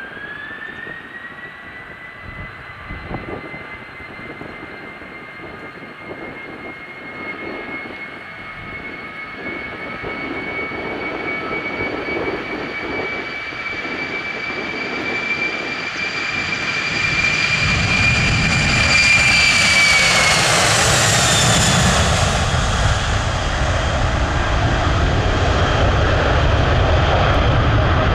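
Boeing 767 airliner's jet engines at takeoff thrust on the takeoff roll: a steady high whine that grows louder, then drops in pitch as the aircraft passes about 20 seconds in, leaving a deep low rumble.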